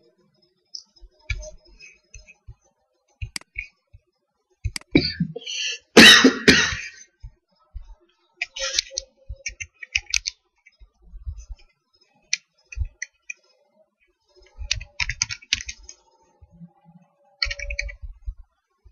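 Computer keyboard keys clicking in short bursts of typing, with one loud burst of noise about six seconds in.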